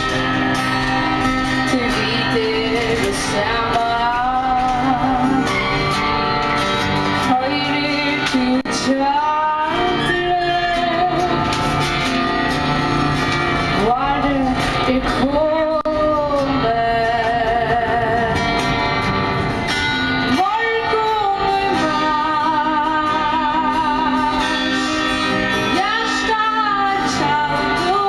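A woman singing in Faroese, holding several notes with vibrato, to her own strummed acoustic guitar.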